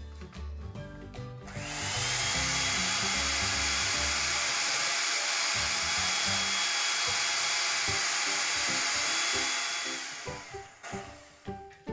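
Electric hand mixer running steadily with a thin whine, its beaters whipping two raw eggs in a stainless steel bowl; it starts about a second and a half in and stops near the end, over background music.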